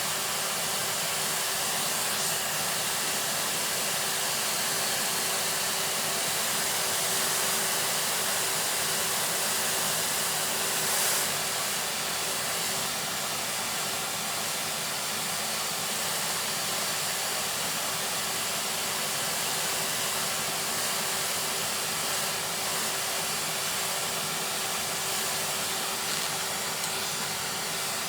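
Vacuum cleaner running steadily: a constant hiss of air with a steady hum.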